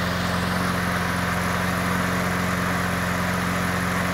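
Toro push mower's single-cylinder Briggs & Stratton engine running steadily at even speed, its freshly cleaned carburetor now letting it run smoothly.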